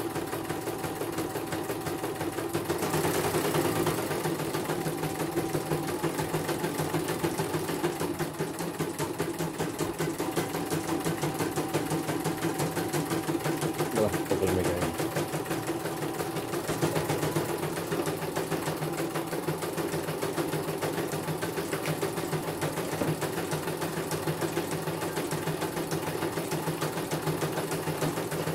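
CNY computerised embroidery machine stitching out a design: the needle bar runs at a rapid, steady clatter while the embroidery arm moves the hoop.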